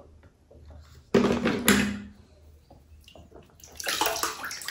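Water splashing and dripping as toy cars are dipped into and lifted out of a shallow tub of water, with a sudden loud splash about a second in and water streaming off a toy near the end.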